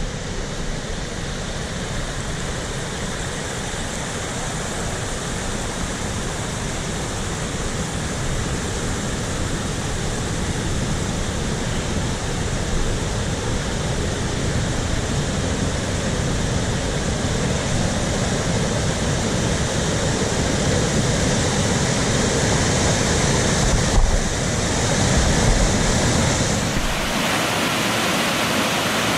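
Waterfall on a river: a steady rush of water pouring over rock, with wind buffeting the microphone underneath. About 27 seconds in, the wind rumble drops away and the water becomes a brighter, even hiss.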